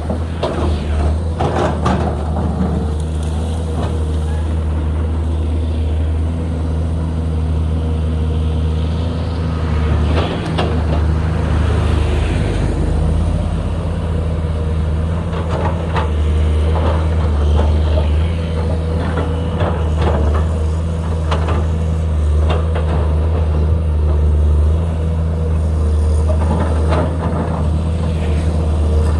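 Komatsu PC210LC excavator's diesel engine running steadily under load, with scattered knocks and scrapes of digging and handling material.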